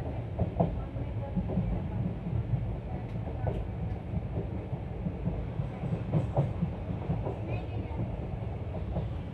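Passenger train running along the track, heard from an open coach doorway: a steady low rumble of wheels on rails with scattered clicks and knocks from the wheels and running gear.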